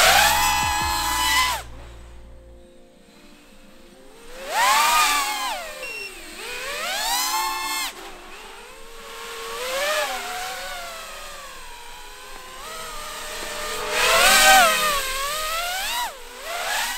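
FPV quadcopter's motors and propellers whining as it flies, the pitch swooping up and down every second or two with the throttle. It grows louder and fainter as the drone comes close and moves away, with a quieter lull a few seconds in.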